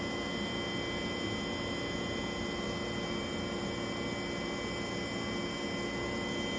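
Steady machine hum and hiss with a constant high-pitched whine, the background noise of laser-cutting shop equipment running.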